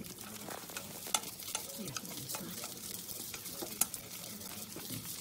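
Rice cakes sizzling in a metal pan of chicken broth that is boiling down, while they are stirred, with a few sharp clicks of a utensil against the pan, the loudest about a second in and near four seconds in.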